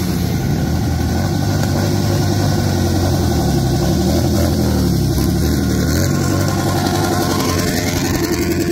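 A procession of motorcycles riding past one after another, Harley-Davidson touring bikes and sport bikes among them. The engine note rises and falls in pitch as each bike passes.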